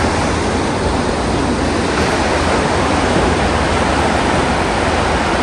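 Sea surf washing onto the shore, a steady rushing noise.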